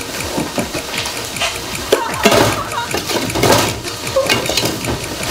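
Water sloshing and splashing in a metal cooking pot as a frozen chunk of pork is lowered and pushed into it.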